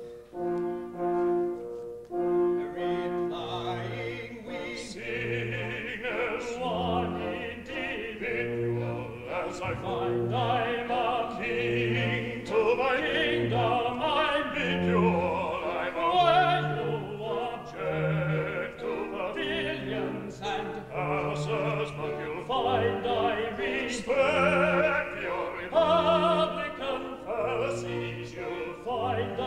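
Male voice singing an operetta number, accompanied by a theatre orchestra in a live stage performance.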